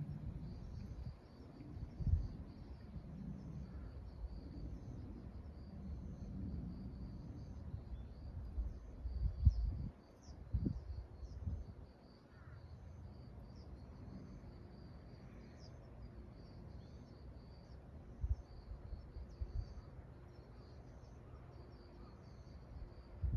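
Outdoor ambience of insects chirping steadily at a high pitch, with many short repeated notes, under irregular low thuds and rumbling that are loudest about nine to eleven seconds in.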